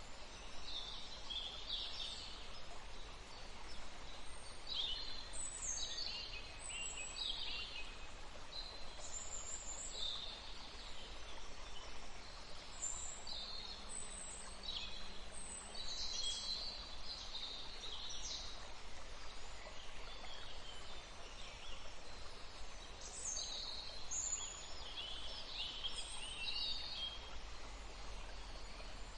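Steady rush of flowing water, with small birds chirping over it in short, high calls scattered throughout.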